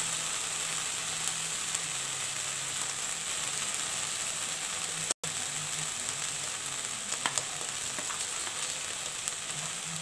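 Ginger, cumin, onion, garlic and chilli paste sizzling steadily in hot oil in a kadai, with a brief dropout about five seconds in.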